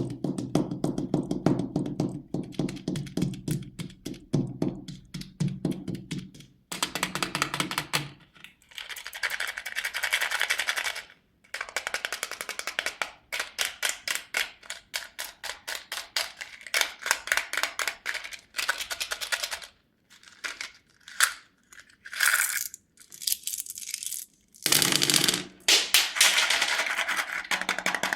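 Candy wrappers and candies being handled, making rapid crackling and clicking in runs of several seconds with short pauses between them.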